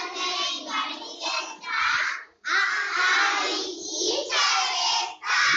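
A group of young children singing an action song together in unison, in phrases, with a brief break about two and a half seconds in.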